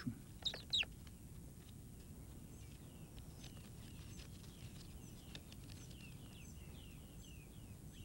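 Red-fronted parrots calling: two louder downward-sweeping squeaks within the first second, then a run of fainter, short falling chirps.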